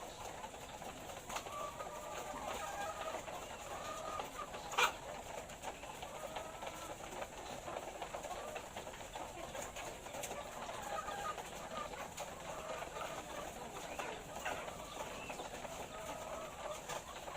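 A flock of laying hens clucking and calling, many short overlapping calls at once, with one sharp click about five seconds in.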